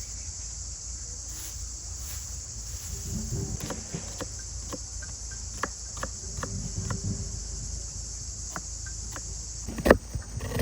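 Steady high-pitched drone of an insect chorus with scattered light clicks and taps; the drone cuts off suddenly near the end, where loud sharp knocks begin.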